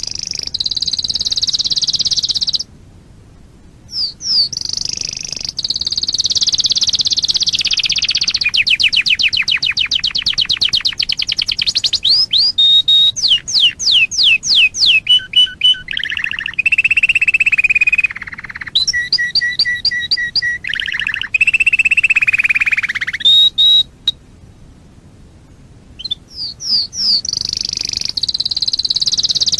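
Canary singing: a long song of fast trills, rapid repeated down-slurred notes and a few held whistled notes, broken by two short pauses, about three seconds in and again near the end.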